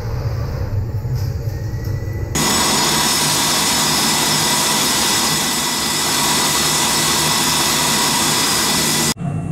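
Mazak Integrex i-630V/6 multi-tasking machine: a low rumble as its tool head swivels into position. Then, from about two and a half seconds in, a loud, steady hiss of a turning tool cutting a C45 steel ring at 180 m/min with 0.4 mm/rev feed. The hiss stops abruptly just before the end.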